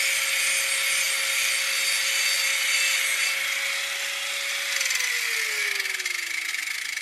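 Electric angle grinder grinding the edge of a steel lawn mower blade, with a steady whine over the hiss of the disc on the metal. The grinding stops about three seconds in. Near the end the grinder is switched off and its whine falls steadily as the disc spins down.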